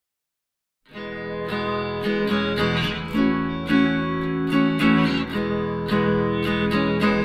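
Background music of a strummed acoustic guitar, starting about a second in after silence.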